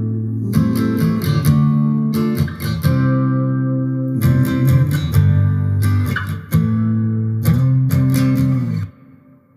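Music: an instrumental passage of a guitar-led song with strummed guitar over a steady beat and no singing. It cuts off abruptly about a second before the end.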